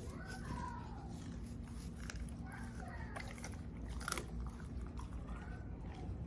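Rottweilers chewing and crunching raw chicken, with scattered cracks of bone and a few short, high, wavering sounds.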